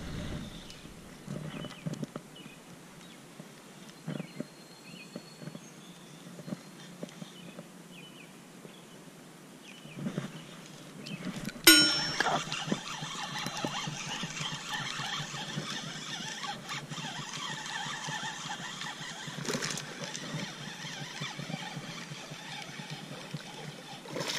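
Spinning reel being cranked to bring in a hooked fish: a sharp click about halfway through, then a steady whirring of the reel's gears. Before that there are only light handling knocks.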